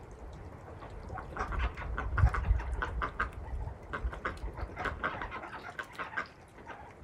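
Domestic poultry, runner ducks and hens, calling in many short, quick notes that start about a second in. A low thump about two seconds in is the loudest moment.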